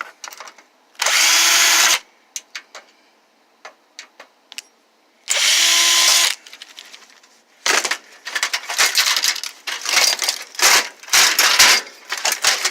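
Power drill driving screws in two short one-second runs, a steady motor whine each time, followed by several seconds of irregular clattering and knocking as parts are handled.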